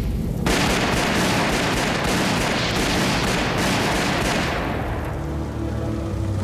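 Rapid automatic gunfire: a dense stream of shots that starts about half a second in and dies away after about four seconds.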